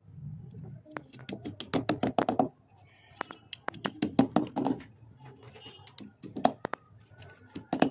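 Rapid runs of small clicks and taps in several short bursts, from hands fastening a pencil sharpener in place.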